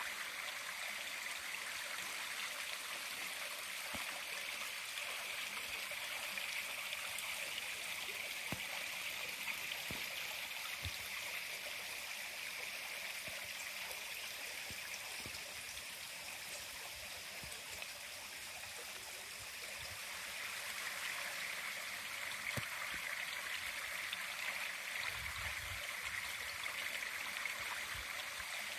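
Steady rushing of running water, a continuous even hiss that eases slightly in the middle and then comes back.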